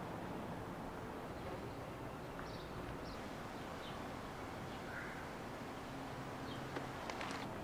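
Steady outdoor background noise with a few faint bird chirps, and several sharp clicks near the end.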